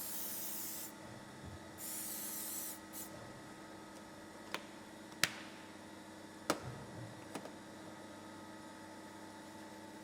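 Aerosol can of mold maintenance product spraying in two hissing bursts of about a second each, with a short puff just after. A few sharp clicks follow, metal or plastic tapping on the mold.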